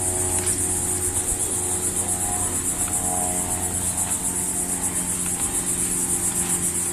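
Chorus of insects, crickets or cicadas, making a steady, rapidly pulsing high buzz. A faint steady low hum runs beneath it.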